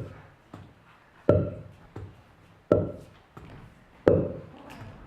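Sound-effects imitation of a tennis rally: a sharp pop for each racket hit about every second and a half, four in all, with a softer tick between each pair like the ball bouncing.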